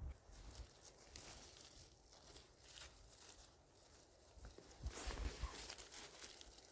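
Faint rustling and crackling of forest-floor moss and twigs, growing louder about five seconds in.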